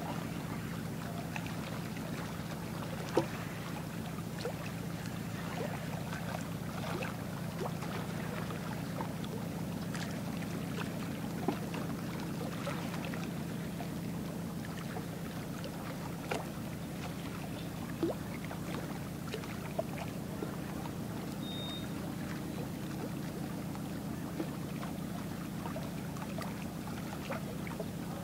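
Steady low drone of ship engines on the water, even throughout, with scattered faint clicks.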